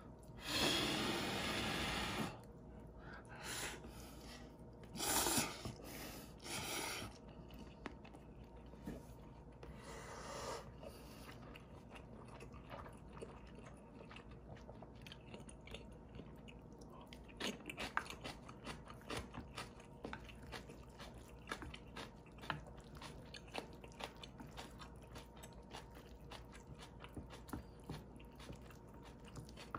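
Someone eating instant ramen: a long slurp of noodles at the start and a few shorter slurps, then chewing with small clicks of chopsticks.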